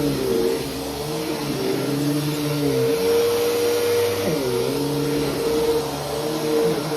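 Bissell PowerForce Helix bagless upright vacuum running. Its motor hum holds steady in loudness while its pitch shifts up and down, dipping briefly about three seconds in and again a little after four.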